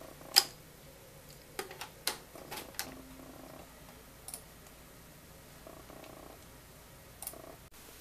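Scattered sharp clicks and light taps: a USB flash drive being pushed into a computer's front USB port, the loudest click about half a second in, followed by several lighter clicks.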